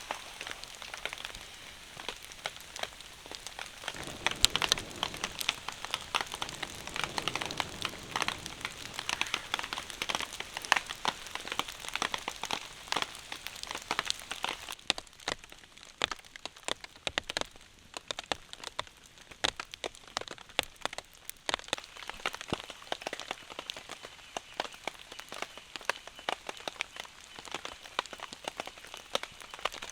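Steady rain, with many separate drops striking close by as sharp, irregular ticks over a soft hiss.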